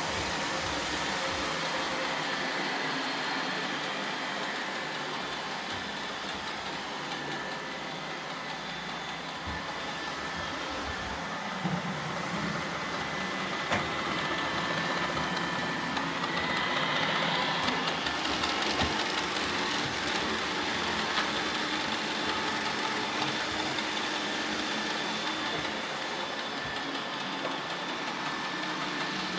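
Roomba robot vacuums running steadily, a motor whir with a few faint steady tones, broken by a few short clicks.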